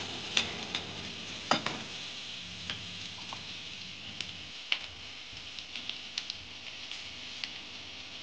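Chopped onions frying in oil in a kadhai, sizzling steadily, while a steel ladle stirs and clinks against the pan, sharpest twice in the first two seconds, then lighter scattered taps.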